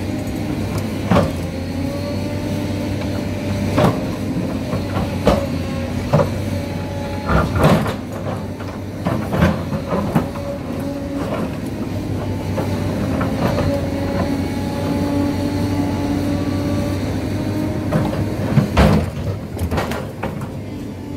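SANY crawler excavator's diesel engine running under load with a steady hydraulic whine. Irregular sharp knocks and scrapes come from the bucket digging into soil and rocks, the loudest about a second in and near the end.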